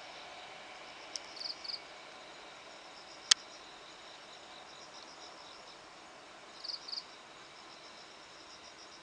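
Night insects chirping steadily in fast, high-pitched pulsed trills, with a couple of louder chirp groups. One sharp click about three seconds in.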